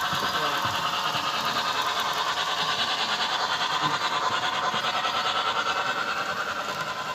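Model steam locomotive running along the layout track with a steady mechanical sound and an even rapid beat, about six a second.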